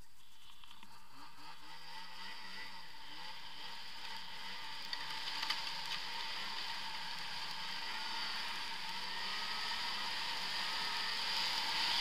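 Arctic Cat ZR 6000 El Tigre snowmobile's 600 cc two-stroke twin running under way, its pitch wavering up and down with the throttle and growing louder towards the end. A couple of sharp knocks come about five seconds in.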